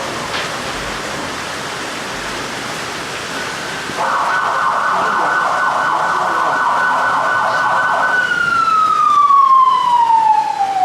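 A steady hiss, then about four seconds in a siren comes in and holds one high pitch. Near the end it slowly winds down in pitch.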